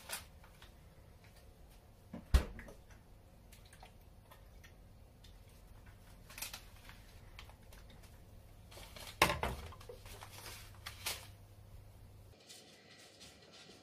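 Kitchen handling sounds at a stainless steel sink: a few scattered knocks and clatters of items being picked up and set down, the two sharpest about two and nine seconds in. A faint low steady hum runs underneath and stops near the end.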